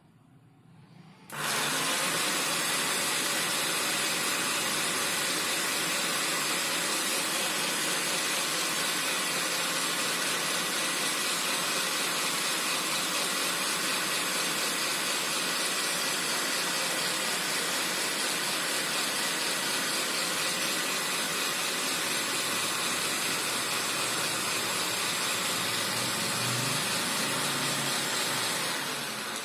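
Electric motor of a Bolde Super Processor food processor spinning its citrus-juicer reamer while a lemon half is pressed onto it. It starts suddenly about a second in, runs steadily, and begins to wind down right at the end as it is switched off.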